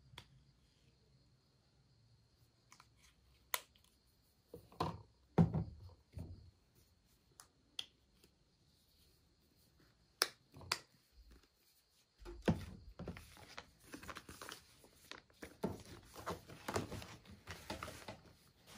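Plastic skincare bottles and a tube handled and set down on a table: scattered light clicks and knocks, the loudest a few dull thuds about five seconds in. From about twelve seconds on, continuous crinkling rustle of packaging as the items and foil sheet-mask sachets are shuffled about.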